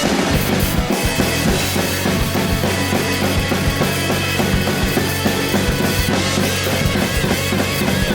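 Drum kit played along to a rock song, with bass drum and snare hits over the band's backing track.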